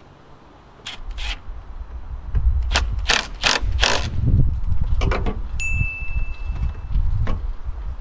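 Cordless drill-driver tightening a battery terminal nut in a few short, quick bursts over a low motor run, with small clicks of the tool on the terminal before it starts.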